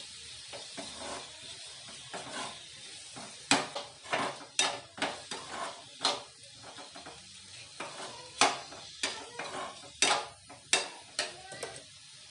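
Boneless chicken cubes sizzling as they fry in a little oil in a metal pan, browning until they change colour, while a spoon stirs them and scrapes and clinks against the pan at irregular moments.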